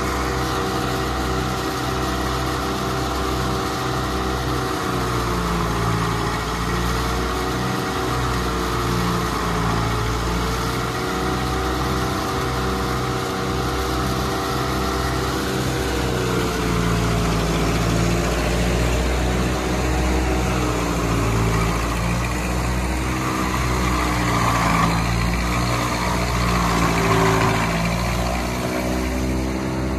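1952 Ford 8N tractor's four-cylinder flathead engine running steadily, belt-driving a McCormick-Deering No. 5 silo filler chopping corn. Its pitch sags and recovers every few seconds under load. The filler's chopping and blowing hiss grows louder in the second half.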